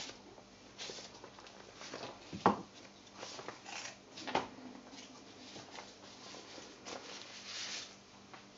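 Faint, scattered handling noises at a worktop: light rustles and small clicks, with one sharp knock about two and a half seconds in.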